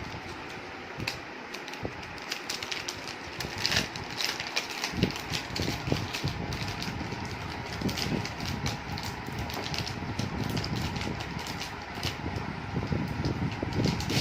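Plastic packaging and toy parts being handled: irregular crackles and clicks over a low rumble.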